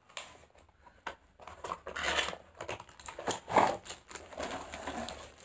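Cardboard shipping box opened at its end flap and a tripod in a plastic bag slid out: irregular rustling, scraping and light knocks of cardboard and plastic.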